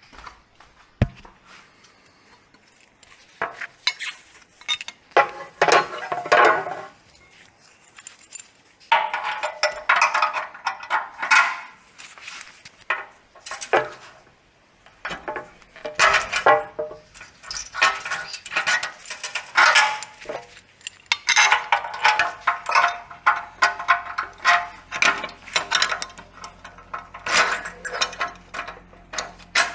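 Steel nuts, bolts and hand tools working on a steel chassis bracket: repeated bursts of rapid metallic clicking and clinking, each lasting a few seconds, with short pauses between them.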